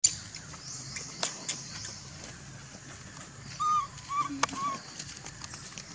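Baby macaque giving three short, high, arching calls in quick succession a little past halfway, calling to its mother to be nursed. A steady high hiss and scattered clicks run underneath.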